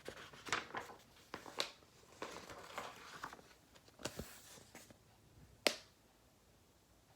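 Paper book handled and its pages turned: faint rustling with several sharp clicks, the sharpest a little before the end.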